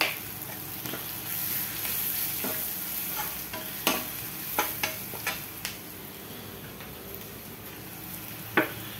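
Sliced onions, garlic, green chillies and freshly added ground spices sizzling in hot oil in a pan, a steady hiss. A steel spatula stirs them, clicking and scraping against the pan several times around the middle and once near the end.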